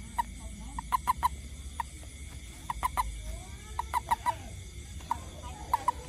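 A toad held in the hand giving short clucking chirps in quick runs of three to five, several runs in a row: the release call that a toad makes when grasped around the body.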